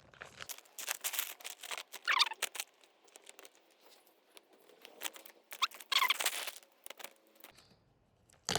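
A large plastic bag of bird seed being pulled and torn open, with uneven crinkling, rustling and crackling, and a few short squeaks about two and six seconds in.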